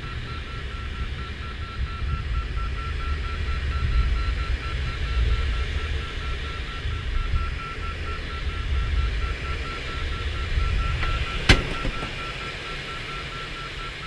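Airflow noise in an ASK 13 glider's cockpit with a low rumble, over a fast, even electronic beeping at one constant pitch from the audio variometer. A single sharp click comes near the end.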